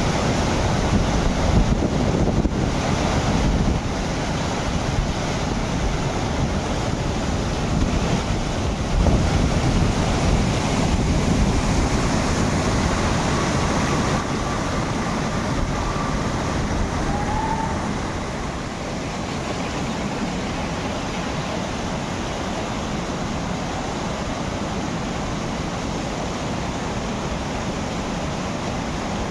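Steady rush of flowing water, dropping slightly in level about two-thirds of the way through, with a brief faint chirp near the middle.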